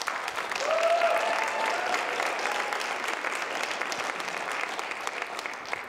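Audience applauding after a talk, with a few voices cheering about a second in; the clapping swells quickly and then slowly tapers off.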